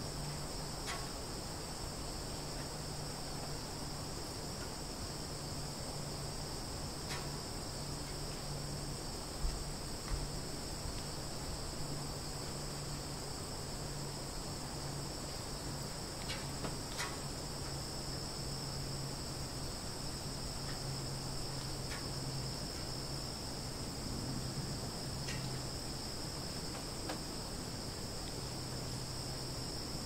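Forest ambience: a steady, high-pitched chorus of insects such as crickets trilling without a break, over a low, even hum, with a few faint short ticks or chirps here and there.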